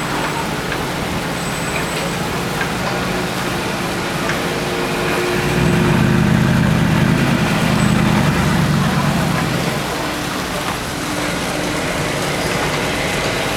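Audi R8 engine running at low revs as the car creeps along at walking pace, a steady low rumble that swells louder for a few seconds around the middle, over general street noise.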